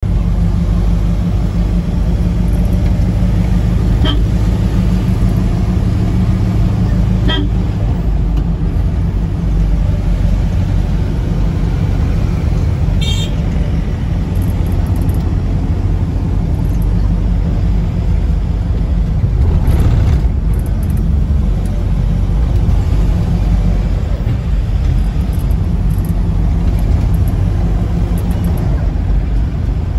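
Steady engine and road rumble heard from inside a moving car, with short horn toots about 4 and 7 seconds in and again near 13 seconds.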